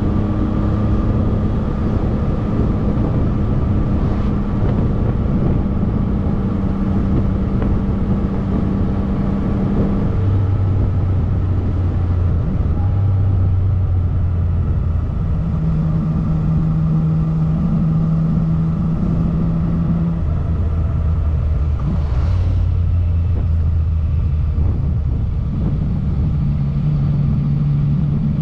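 Yamaha MT-09 Tracer's inline-three engine running at a steady road speed, a steady drone whose pitch steps up or down a few times, under a constant rush of wind and road noise.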